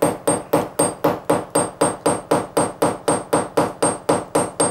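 Claw hammer tapping the steel nail of a cable clip into hard mortar: a steady run of light taps, about four a second, each with a short high ring. Many small taps are used instead of big hits because the mortar is hard and a heavy blow would bend the nail.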